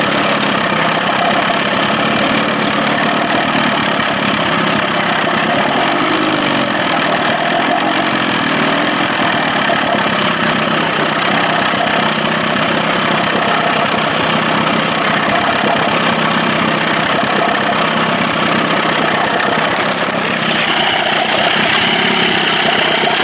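Johnson 25 hp two-stroke outboard motor running steadily at idle. About twenty seconds in, a higher-pitched whine joins the engine sound.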